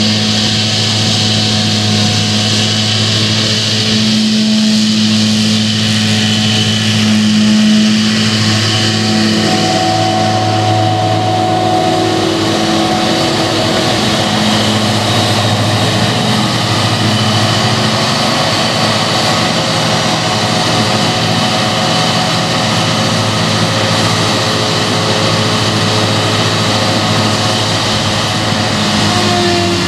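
Claas Jaguar self-propelled forage harvester running under load while chopping standing rye: a loud, steady engine and machine drone, its whine stepping slightly higher about ten seconds in.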